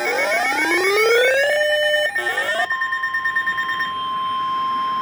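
Several siren-like tones rising together, then held and pulsing, giving way about two and a half seconds in to a single steady alert tone near 1 kHz. This is the NOAA Weather Radio warning alarm tone that comes before a severe thunderstorm warning is read.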